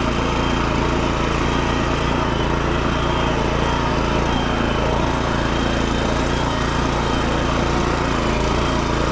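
BCS walk-behind tractor's engine running steadily while its rototiller works the soil.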